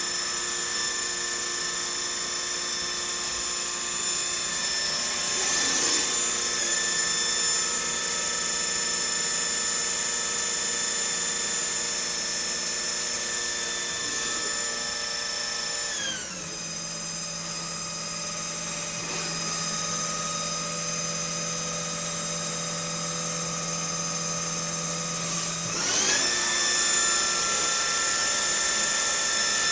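Tornos Deco 13 Swiss-type CNC lathe running, with a steady high whine made of several tones. About 16 s in the whine drops in pitch as the machine slows, and a lower steady hum holds until about 26 s, when the whine rises back up to speed.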